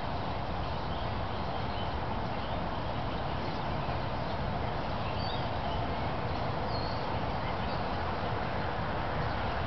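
Steady, even outdoor rumble and hiss, with a few faint high chirps about halfway through.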